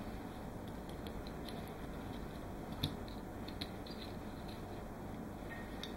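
Faint, sparse clicks and taps of small metal gearbox parts being handled and fitted by hand, over a steady background hiss; the clearest click comes a little under three seconds in.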